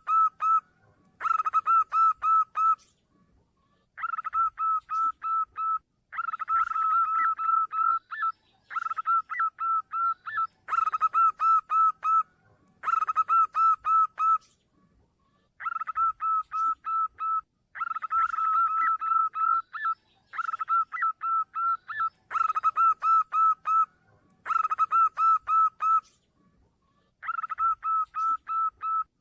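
Zebra dove (perkutut) song: repeated phrases of rapid staccato cooing notes, each phrase about one and a half to two seconds long, with short pauses between them.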